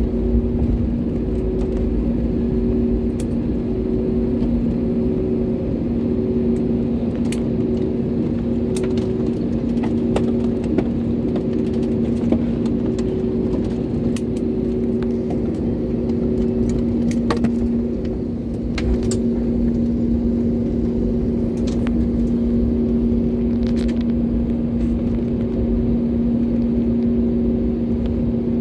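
Jet airliner taxiing after landing, heard from inside the cabin: the engines' steady low rumble with two droning tones, and scattered light clicks and rattles.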